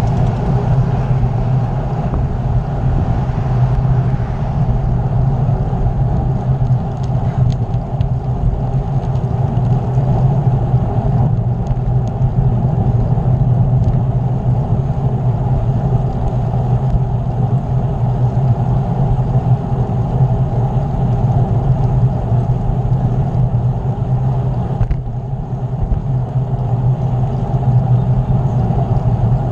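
Wind rushing over the microphone of a camera riding on a moving bicycle: a loud, steady rumble with road noise.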